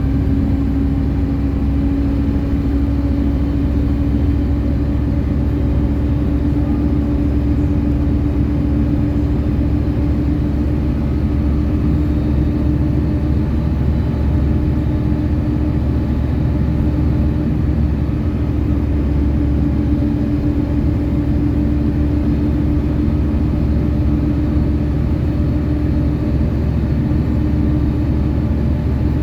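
City bus under way, heard from inside: steady engine and road rumble with a constant whine held throughout.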